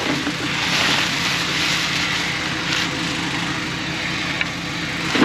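A vehicle engine idling steadily, with rustling noise rising and falling over it and a sharp knock near the end.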